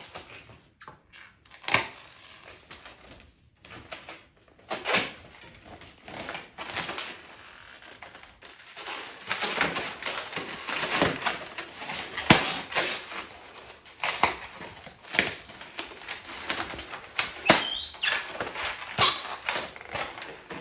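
Rubber balloons squeaking and rustling as they are handled, with a series of sharp cracks spread through, the loudest at about 2, 5, 12, 15 and 19 seconds in.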